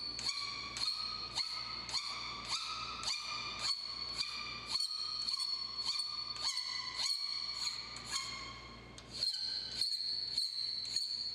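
Fine-tooth file draw filing the edge of a steel part held in a vise, about two strokes a second, each stroke giving a high ringing squeal that shifts slightly in pitch from stroke to stroke. The strokes ease briefly about nine seconds in.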